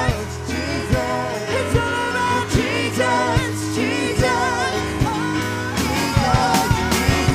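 Live spontaneous worship music: women's voices sing a wavering, ornamented melody into microphones over a band with drums keeping a steady beat and sustained low bass notes.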